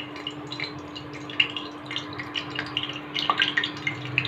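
Mustard seeds sizzling in hot oil in a stainless-steel kadai, giving many small scattered crackles and ticks over a steady low hum.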